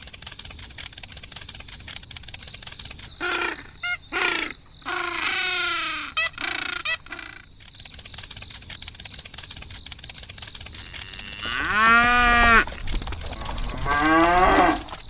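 Cow mooing several times in separate drawn-out calls, the longest and loudest about twelve seconds in, over a faint, fast, steady ticking.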